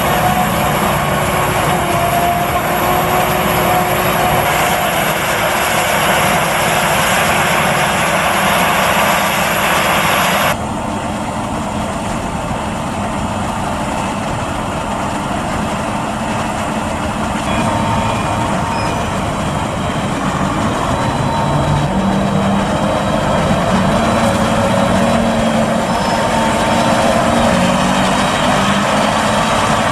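Claas Jaguar 950 forage harvester running under load while chopping maize with its Kemper Stalkbuster header: a loud, steady mechanical din of engine, header drums and chopper. The sound changes abruptly about ten seconds in, losing its high hiss and becoming a little quieter.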